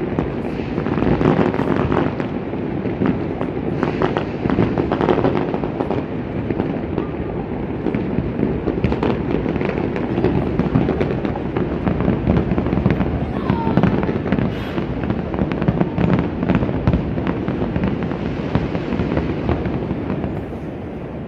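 Many fireworks going off at once: a continuous crackle of overlapping bangs and pops over a low rumble, easing off near the end.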